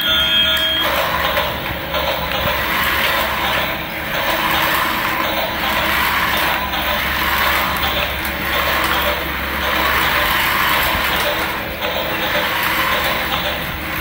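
A battery toy train's steady electronic tones cut off about a second in. Then come the steady whir of small toy motors and plastic gears and wheels rolling on tile, swelling and fading a little.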